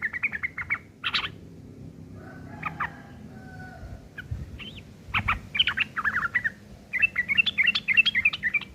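Yellow-vented bulbul (trucukan) singing in bursts of rough, rapid chattering phrases, its song laced with mimicked long-tailed shrike calls; a quieter lull near the middle, then a fast dense chatter near the end.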